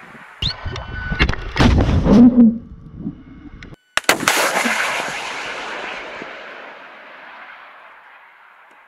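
Anti-tank guided missile being fired from a tripod launcher. A sharp blast comes about half a second in, followed by a couple of seconds of sharp cracks and loud rushing noise. After a brief drop-out, a second sharp bang comes about four seconds in, the hit at the target, and its rumble fades over the following seconds.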